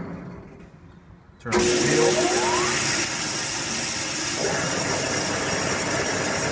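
Blanchard No. 11 rotary surface grinder's electric motor switched on about one and a half seconds in: a sudden start with a whine that rises in pitch as it spins up, then a steady machine run. Before the start, the machine's earlier running sound dies away to near quiet.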